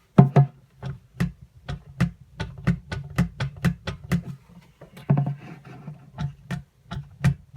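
Light knocking of a hand tapping on a hinged fold-down door, about twenty short taps at two to three a second.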